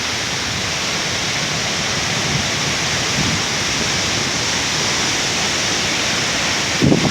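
Waterfall rushing: a loud, steady roar of falling water. Near the end a sudden louder rumble breaks in over it.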